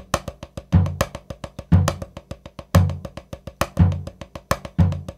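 Drum kit played with sticks: a fast, even run of strokes, about ten a second, with a low bass drum accent roughly once a second.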